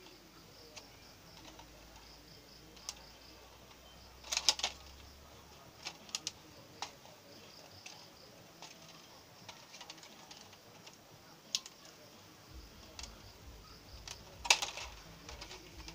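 Scattered clicks and crackles of a cut clear plastic bottle being handled and bent, with two louder crinkling bursts, one about four seconds in and one near the end.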